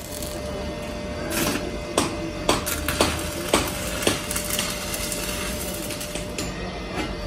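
Hammer striking steel: about five sharp knocks roughly half a second apart, between two and four seconds in, with a few more later, over steady workshop noise.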